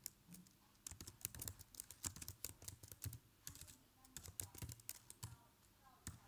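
Computer keyboard typing: irregular runs of quiet key clicks with short pauses between them.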